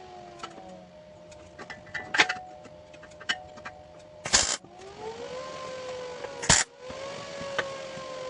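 Electric power tool motor whining, its pitch sagging and recovering as if under load, with scattered sharp clicks. Two brief harsh bursts come about four and six and a half seconds in. After the first burst the motor's pitch drops away and glides back up.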